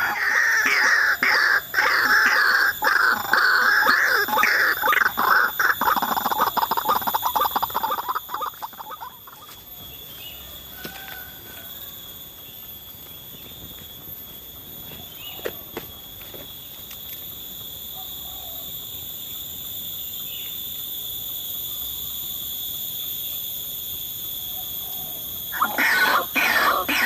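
White-breasted waterhen (ruak-ruak) calling: a loud, fast run of repeated harsh calls that stops about a third of the way in and starts again near the end. Between the runs only quiet background with a steady high-pitched drone remains.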